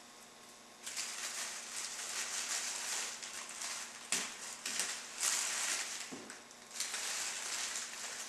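Metallic foil poofs and tinsel garland sprigs crinkling and rustling as they are handled and pushed into the centerpiece. The rustling comes in stretches, with a few sharper crackles about halfway through.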